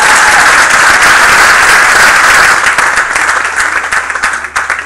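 Large seated audience applauding in a hall: loud, dense clapping that thins out over the last couple of seconds into scattered claps and fades away.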